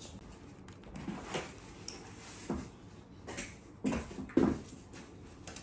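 Handling noises: a series of short knocks and rustles, with one sharp click about two seconds in.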